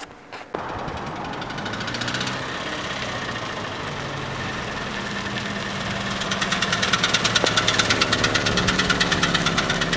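Car engine running as the car drives up close, growing louder from about six seconds in with a fast, even pulsing.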